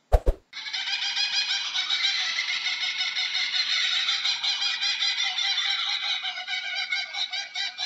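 Laughing kookaburras calling in chorus: a dense, unbroken mass of overlapping cackling laughs, after two short clicks right at the start.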